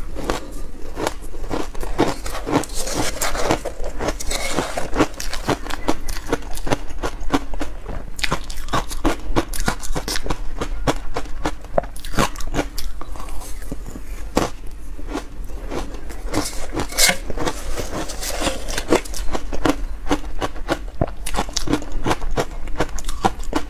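Close-up chewing of dense reshaped ice coated in milk powder: a rapid, irregular run of crisp crunches and crackles, with a metal spoon scraping a stainless steel bowl.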